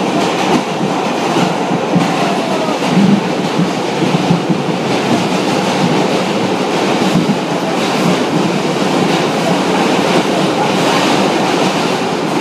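New York City 1 train subway car running along the track, heard from inside the car: a steady loud rumble and rattle of wheels on rail, with scattered clicks.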